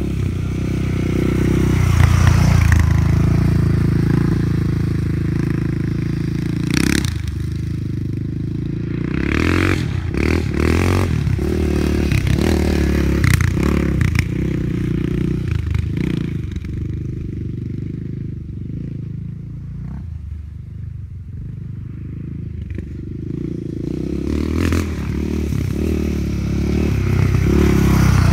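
Yamaha Raptor 660R quad's single-cylinder four-stroke engine running and revving as it is ridden, fading for a while in the middle and loud again near the end, with a few short clattering knocks.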